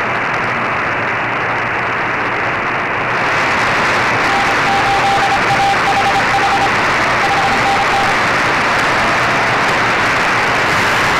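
Shortwave radio band hiss on the 20-metre band in CW mode, turning brighter about three seconds in. A faint Morse code tone keys dots and dashes for about four seconds in the middle, from a station calling CQ.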